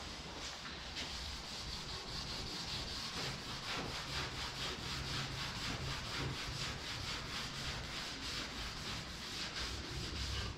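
Quick, even back-and-forth scrubbing by hand on a steel vehicle hood, about four strokes a second, starting about a second in. The scrubbing is lifting a top coat of paint softened by oven cleaner.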